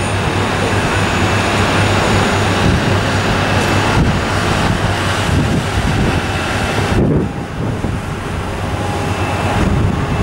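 Jet engines of an Air Berlin Boeing 737-800 running on the runway, a loud steady noise with a low hum underneath. About seven seconds in the sound suddenly goes duller and quieter.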